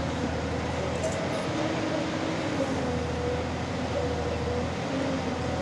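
Tata Hitachi 200 excavator's diesel engine running steadily under work, with a whine that steps up and down in pitch now and then.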